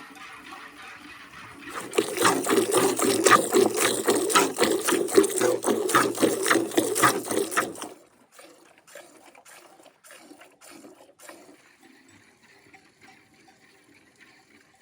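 Hand milking a cow: rhythmic squirts of milk hitting a pail, a few strokes a second, starting about two seconds in and stopping abruptly near the middle, followed by faint shuffling and ticks.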